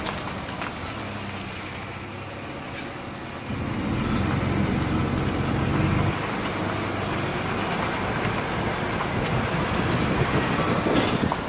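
Ford E150 van's 4.2-litre V6 engine running, with a steady low drone that gets louder about three and a half seconds in and eases briefly about six seconds in. The owner reports a strange knocking from this engine, with some of the noise coming from a loose exhaust heat shield.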